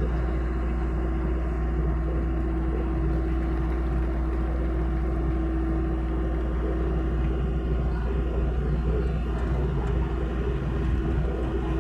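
Hitachi mini excavator's diesel engine running steadily, a low drone with a steady tone held above it.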